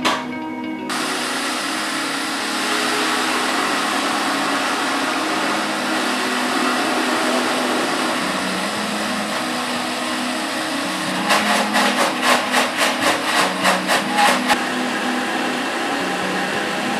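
Hamilton Beach Professional juicer mixer grinder's 2.2 HP motor starting about a second in and running steadily, grinding dosa batter in its square steel jar. Past the middle, for about three seconds, the sound pulses about four times a second before it goes steady again.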